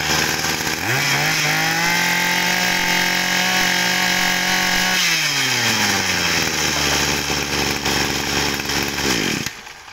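Maruyama 23cc two-stroke brush cutter engine running. It idles, then is revved up about a second in and held at full throttle with a steady high whine, drops back to idle by about six seconds, and is switched off near the end.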